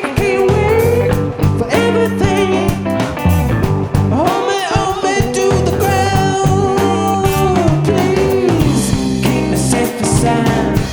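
Rock band playing live: guitar, bass and drums, with a melody of long held notes over a steady beat.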